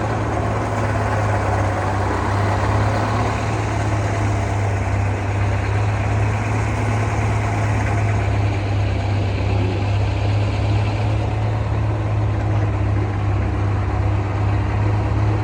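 Engine powering a Frick sawmill running steadily at a constant speed, with a strong even hum.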